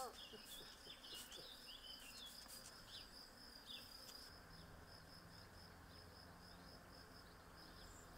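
Faint garden ambience: a steady high-pitched insect trill with scattered bird chirps in the first half, and a low steady hum that comes in a little past halfway.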